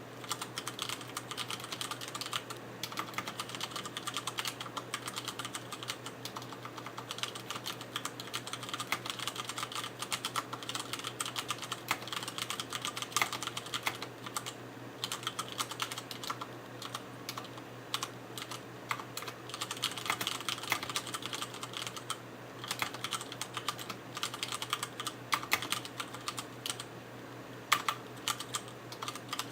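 Continuous typing on a mechanical keyboard with Cherry MX Brown tactile switches and ABS keycaps (mStone Groove87-FR4): rapid, irregular key clacks with brief pauses here and there.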